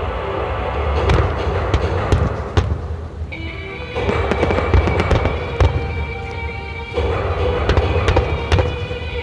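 Aerial fireworks shells bursting in quick succession, sharp bangs and crackles one after another, over music played for the display.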